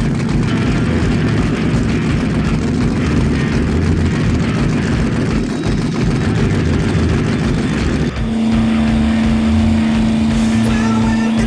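A motorboat's engine running at speed with heavy wind and water noise; about eight seconds in the sound changes abruptly to a steady, even-pitched engine hum.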